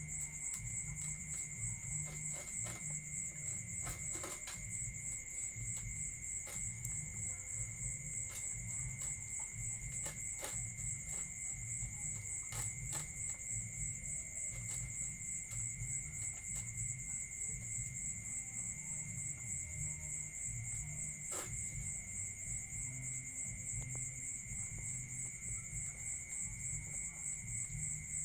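Insects, likely crickets, trilling steadily in two high, fast-pulsing tones over a low hum, with scattered faint clicks from dogs eating out of plastic tubs.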